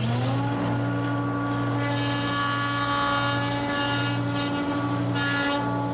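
Jointer running: its motor comes up to a steady whine in the first moments, then the cutterhead planes a rough cypress board pushed across it, adding a hissing cut for about three seconds near the middle, taking off about a thirty-second of an inch.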